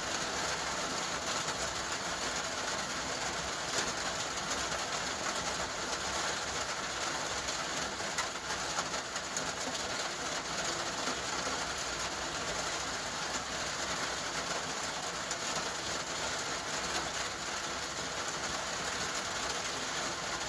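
Steady rain falling, an even hiss with a few sharper drip ticks.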